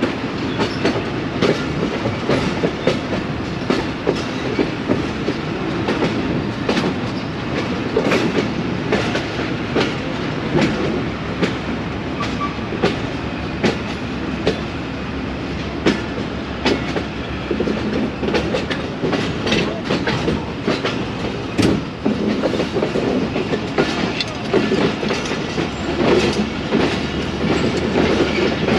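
Train running on the track: wheels clattering over rail joints in an uneven run of sharp clicks, over a steady rumble.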